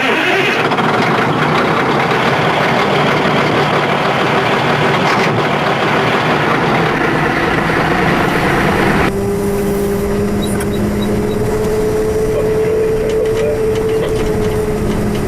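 Heavy construction machinery diesel engines running. About nine seconds in the loud rushing noise cuts off suddenly, leaving a steadier engine hum with a held tone that rises slowly.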